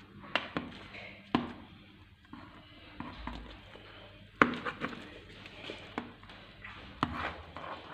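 Metal spoon cutting into a baked karantika and scraping and knocking against the metal baking tray, giving a scattering of short, sharp clicks and taps.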